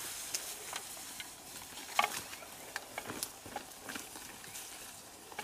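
Footsteps and rustling through tall grass, with irregular small clicks and snaps of stems and one sharper snap about two seconds in.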